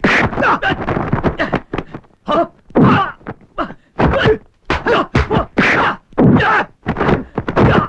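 Film fight sound effects: a rapid run of punches and kicks landing as whacks and thuds, mixed with the fighters' grunts and groans.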